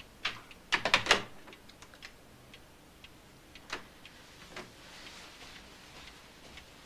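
A clock ticking quietly, about twice a second. Early on, a short loud clatter as a corded telephone's handset is put down on its base, and two softer knocks a few seconds later.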